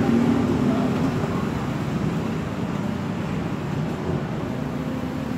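Road traffic noise: a steady hum of vehicles on the street, with an engine hum that fades out about a second in.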